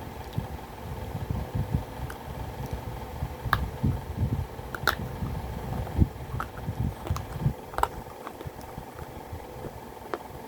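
Close-miked chewing of a big bite of baked clay pot pieces: dull, irregular mouth sounds with sharp crunches scattered through, the loudest about three and a half and five seconds in. The chewing thins out near the end.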